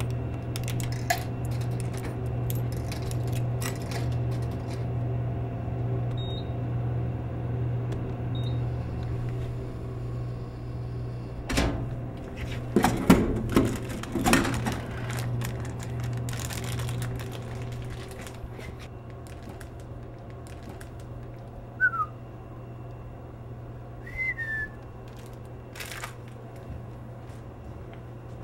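Low steady electrical hum of a snack vending machine, with small clicks at the coin slot in the first few seconds. A clatter and crinkle comes about 13 seconds in, as a snack packet is pulled from the delivery bin. Two short falling high chirps come near the end.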